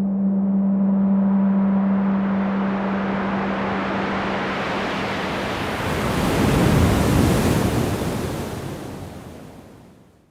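A long rushing surge like an ocean wave, swelling to a peak about seven seconds in and then fading away to silence. Under the first half is a steady low hum that fades out about five seconds in.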